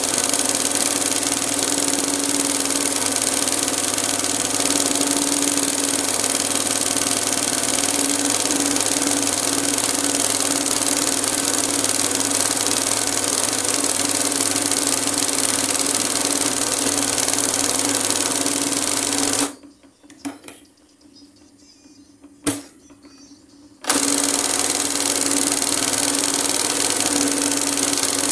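Industrial embroidery sewing machine running steadily at speed with a constant hum, stitching gold cord onto fabric. About twenty seconds in it stops for roughly four seconds, with a click or two in the pause, then runs again.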